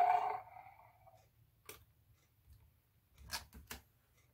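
The end of a loud electronic monster roar from a light-up, sound-effect toy figure, dying away within the first second. A few faint clicks follow, three of them in quick succession about three and a half seconds in.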